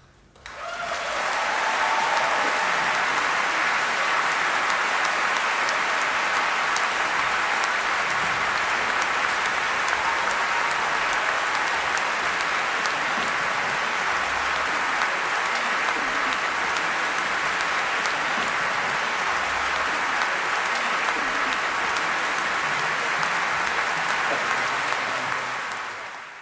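Large concert-hall audience applauding: a dense, steady patter of many hands clapping. It comes up quickly at the start and fades out near the end.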